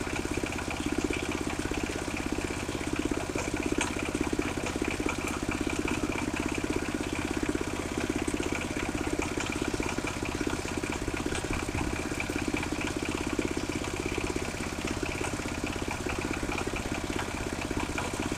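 Engine of a mobile circular sawmill running steadily at an even pitch, with no cut under way.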